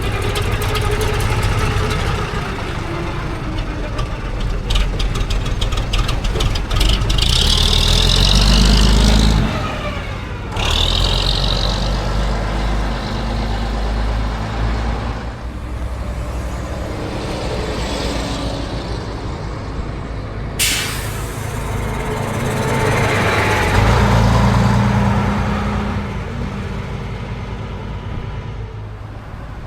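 Diesel bus engines running and pulling away, the engine note swelling twice. Short hisses of air brakes releasing come about a third of the way in, and a single sharp crack comes about two-thirds of the way through.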